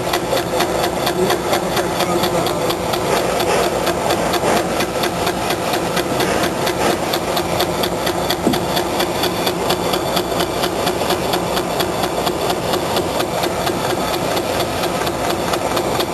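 Manual engine lathe machining a stainless steel (SUS304) screw-conveyor shaft: the machine runs steadily under cut, with a fast, even ticking several times a second.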